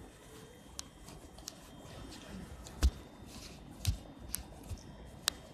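Handling noise on a handheld phone's microphone: scattered clicks and light rubbing from fingers and movement, with a dull thump about three seconds in, over faint steady background noise.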